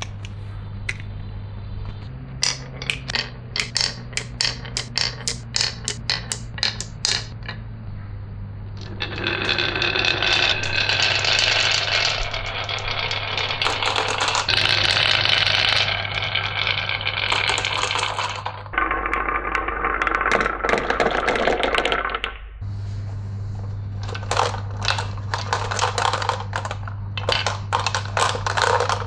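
Marbles clicking and clattering down a marble run's tracks, with stretches of continuous rolling rattle where many run at once, over a steady low hum.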